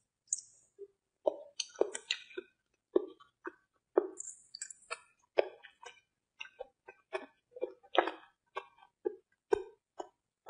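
Close-miked mouth sounds of a person chewing soft, wet food: irregular sticky smacks and clicks, several a second, with short silent gaps between them.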